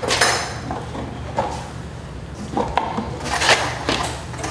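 Scattered light metallic clinks and taps from hand tools working at a wall outlet box, over a steady low hum.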